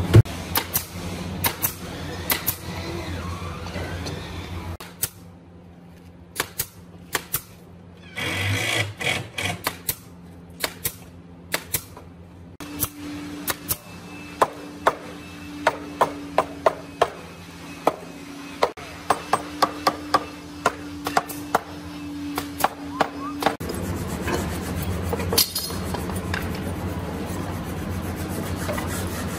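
Pneumatic nail gun firing a quick string of about twenty sharp shots into a wooden box beam in the middle stretch, with scattered single shots earlier, under background music.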